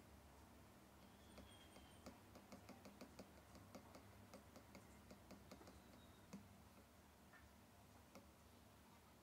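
Apple Pencil tip tapping on the iPad Pro's glass screen: a string of faint clicks, several a second from about two to six seconds in, sparser after that, over a low hum.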